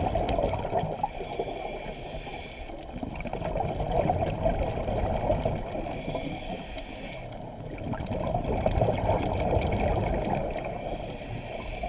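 Scuba diver's regulator breathing and exhaled bubbles, heard underwater through a GoPro housing as a muffled bubbling rush. It swells and fades in slow cycles about every four seconds.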